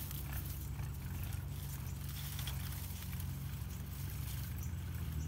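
Dry grass rustling and crackling faintly as someone reaches down into it, over a low steady hum.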